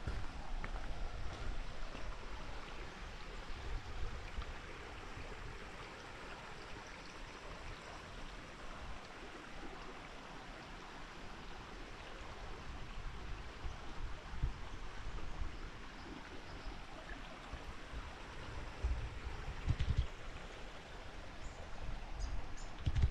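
Steady rush of running water, like a small bush creek, with the hiker's footsteps thudding on the trail now and then, more of them in the last third.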